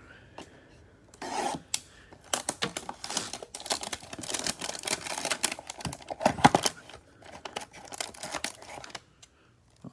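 A Panini Prizm hanger box's cardboard is slit and torn open, and then the cellophane-wrapped stack of cards inside is handled. The tearing and crinkling comes in irregular bursts and stops about nine seconds in.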